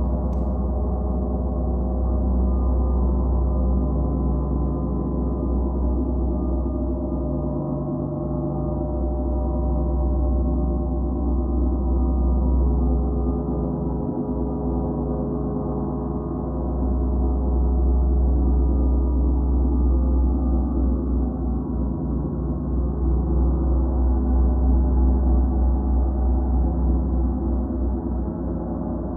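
Gongs played continuously in a gong bath: a dense wash of many overlapping ringing tones over a deep low hum, swelling and ebbing slowly, loudest in the second half.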